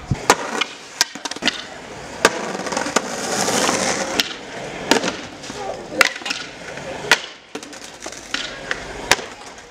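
Skateboard clacking on concrete pavement as the skater bails on a stair set: a series of sharp clacks as the board slams down and tips over. A louder rolling hiss from its wheels comes about three seconds in.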